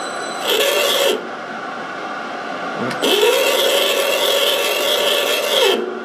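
Metal lathe running while a single-point threading tool cuts a thread into a brass workpiece: the tool scrapes against the turning metal briefly about half a second in, then again for a longer stretch from about three seconds in until just before the end.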